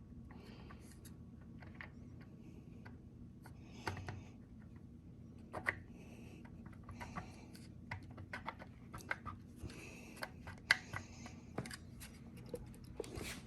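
Faint, irregular light clicks and scraping of small metal parts being handled, as engine valve lifters are set into their lifter trays, with a steady low hum underneath.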